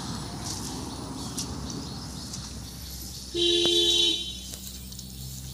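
A vehicle horn sounds once, a steady two-note honk lasting under a second, starting a little past the middle, over a quiet rural background.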